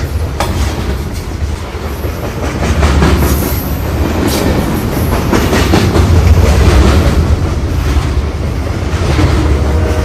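Train running along the track: a steady heavy rumble with the clatter of wheels over the rails and a few sharp clicks.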